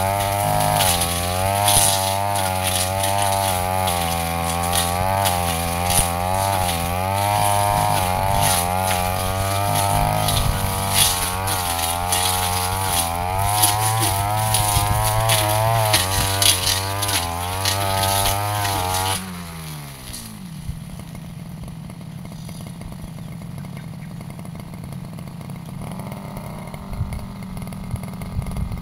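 Backpack brush cutter engine running near full throttle as it cuts grass and brush, its pitch rising and falling with the load. About 19 seconds in the throttle is released and the engine winds down to a much quieter idle.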